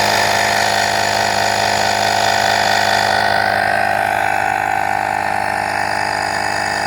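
Astro AI portable air compressor running steadily, its small motor and piston pump giving a loud, even buzzing hum while inflating a tyre. About three seconds in the sound becomes slightly duller.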